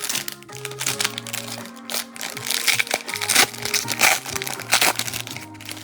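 Foil trading-card pack wrapper crinkling and crackling in irregular bursts as the pack is opened and the cards handled, over steady background music.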